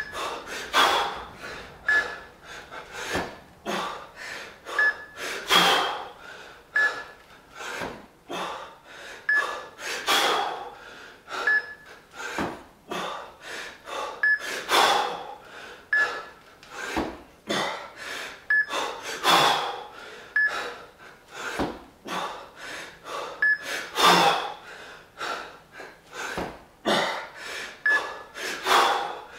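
Hard, rhythmic breathing of a man jerking two 20 kg kettlebells: quick gasps and snorting breaths, with a big forced breath about every four to five seconds, once per rep. A short, thin high blip recurs every couple of seconds.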